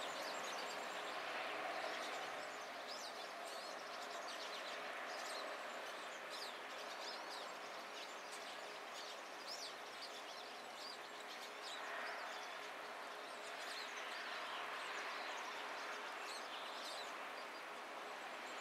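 A flock of pine siskins twittering in many short, high chirps. Underneath is a steady hiss of road traffic that swells and fades.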